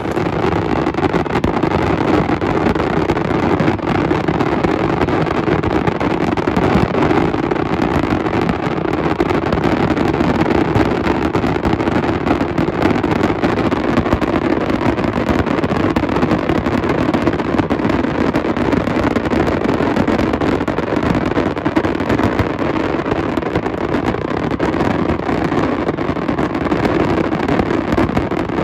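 Fireworks finale barrage: many shells and cakes going off at once, making a steady, unbroken din of overlapping bangs and crackle with no gaps between reports.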